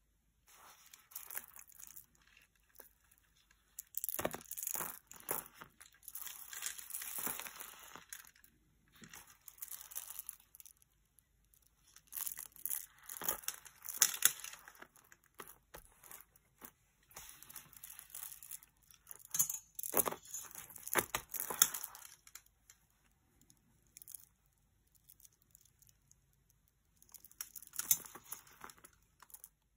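Strands of freshwater pearls being handled and shifted over paper: repeated bursts of rustling with small sharp clicks of pearls knocking together, several times with short pauses between.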